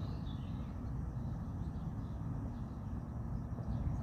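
Low, uneven rumble with no distinct events.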